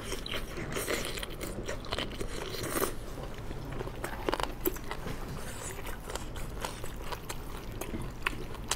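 Close-up mouth sounds of biting and chewing a boneless chicken foot, then gloved hands rummaging through sauced chicken feet in a glass dish, giving irregular small clicks and wet, sticky squelches.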